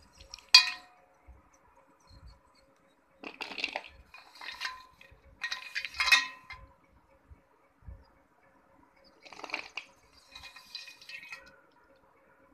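Wet slate pencils and slate bars clinking and clattering against each other as they are shuffled in a hand. A single sharp click about half a second in, then three bursts of clatter.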